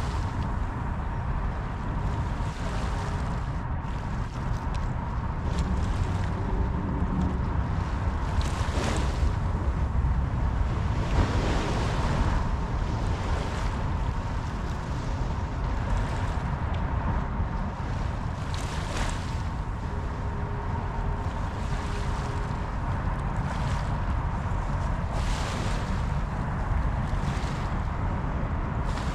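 Waves washing onto a beach, surging every few seconds, with wind rumbling on the microphone.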